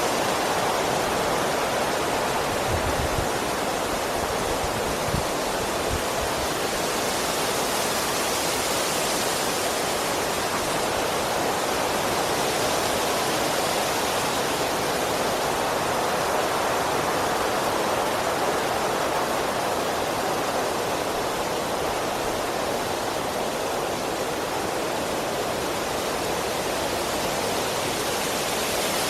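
Strong wind rushing through trees, a continuous rushing roar of leaves and branches that swells and eases slowly in gusts. A couple of faint low thuds about three and five seconds in.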